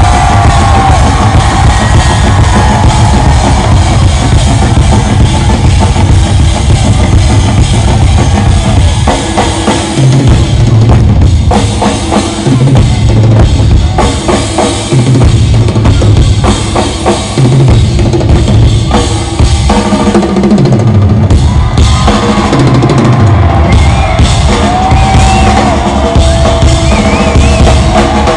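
A rock band drumming together live: a full drum kit and several extra drums played at once in a loud, driving pattern of bass drum, toms and snare. Rolling low tom runs repeat every two seconds or so through the middle stretch.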